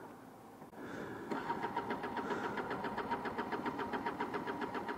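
Gilera Runner 180cc scooter engine running faintly with an even pulsing beat, about eight pulses a second, and a thin steady tone over it, coming in about a second in. It runs poorly on a weak or missing spark, which the owner puts down to a faulty ignition (CDI or coil).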